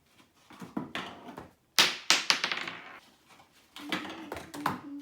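A marble rolling and dropping through a homemade marble run, clattering in a series of sharp clacks and taps, the loudest cluster about two seconds in and more near the end.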